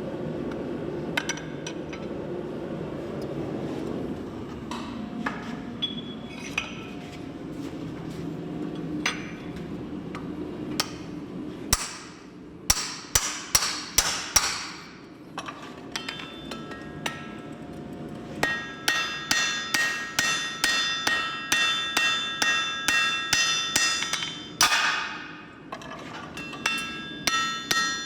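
Hot steel being hammered on an anvil with the poll of an axe used as a forging hammer. It begins as a steady rushing noise with a few scattered knocks. About halfway in comes a quick run of half a dozen ringing blows, and from about two-thirds in a regular series of about three blows a second, each leaving a bright metallic ring.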